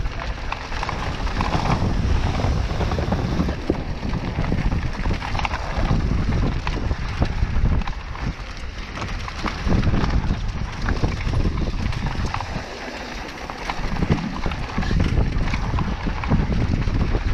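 Mountain bike riding down a dirt bike-park trail: tyre noise on the ground with the bike rattling and knocking over bumps, and wind rumbling on the microphone.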